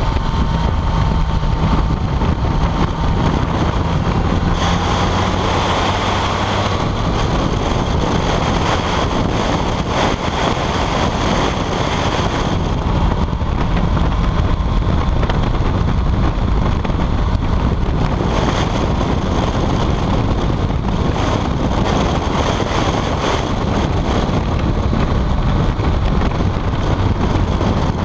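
BMW K75 three-cylinder motorcycle running steadily at road speed, its engine note under a constant rush of wind buffeting the microphone.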